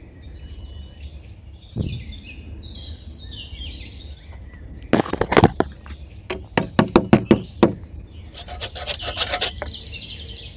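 Birds chirping over and over, with a thump about two seconds in and then loud clattering: a short burst, a quick run of about eight sharp knocks, and a longer burst near the end.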